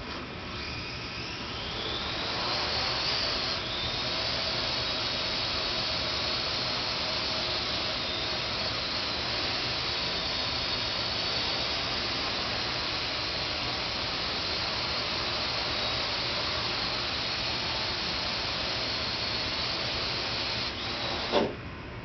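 Parrot AR.Drone 2.0 quadcopter's electric motors and propellers spinning up with a rising whine at takeoff, then holding a steady whine while it hovers. Near the end a short knock as it sets down, and the whine falls away quickly as the motors stop.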